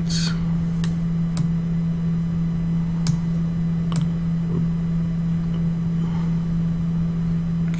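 Steady low electrical hum with faint hiss on the recording, with about four sharp single clicks in the first half, typical of a computer mouse being clicked while adjusting settings.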